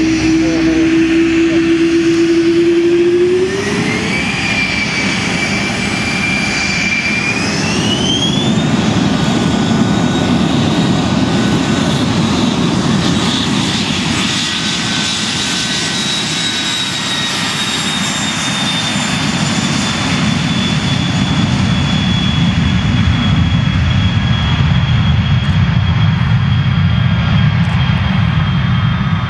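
Dassault Falcon 2000 business jet's twin turbofan engines spooling up to takeoff power, their whine climbing in two steps in the first several seconds. They then run at a steady loud roar on the takeoff roll, and the high whine slowly falls in pitch over the second half as the jet moves away.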